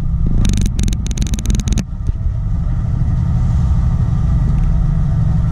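A shrimp boat's diesel engine running steadily under way, a low rumble heard inside the wheelhouse. For the first two seconds a rapid crackling lies over it.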